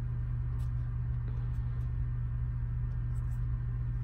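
Steady low hum with a few faint clicks from a snap-on phone bumper case being pried off the phone.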